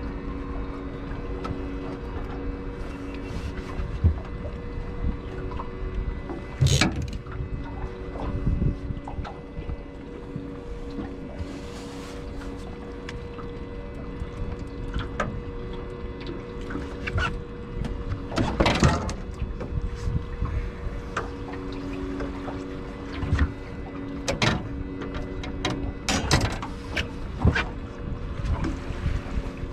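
Knocks and clatter of gear being handled in a small fishing boat, over a steady low hum and a low rumble of wind on the microphone.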